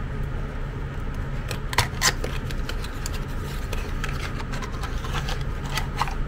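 Cardboard glue box being handled and opened: rubbing and scraping of the card, with a couple of sharp clicks about two seconds in, then the two glue tubes sliding out of the box near the end.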